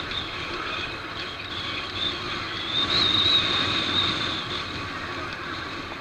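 Street traffic heard from a moving bicycle: continuous road and wind noise with a large SUV close alongside. A steady high whine runs through it and swells about three seconds in.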